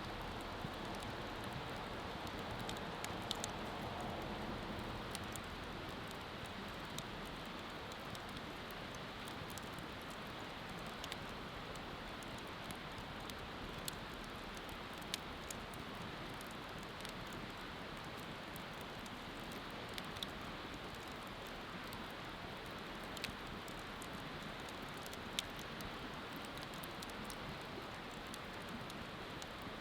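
Wood bonfire burning: a steady hiss with scattered sharp crackles and pops at irregular intervals.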